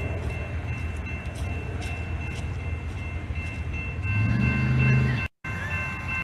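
Steady low rumble of a train on the tracks, with a few faint high steady tones over it. A louder low hum swells about four seconds in, then the sound drops out for a moment and comes back.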